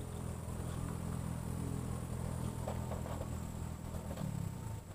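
A steady low engine hum, wavering near the end.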